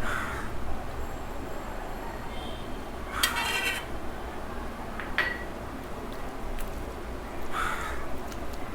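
Plate and dishes clinking while rice and dal are eaten, with one sharp clink about five seconds in. A crow caws once, about three seconds in.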